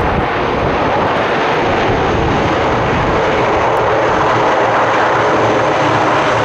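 Lockheed C-130J Hercules's four turboprop engines running loud and steady as it taxis, a constant low propeller hum under a dense drone.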